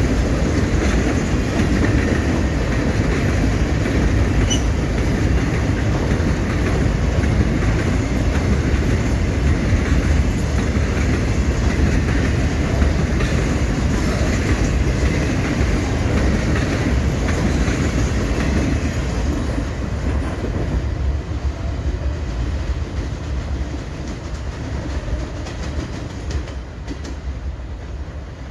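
Loaded freight train of HAT wagons rolling past, its wheels clattering and rumbling steadily over the rail joints. The sound eases off over the last several seconds as the train moves away.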